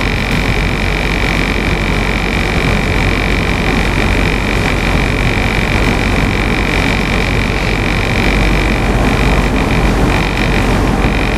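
Tugboat's diesel engines running steadily under way, a loud even rumble with a constant high whine.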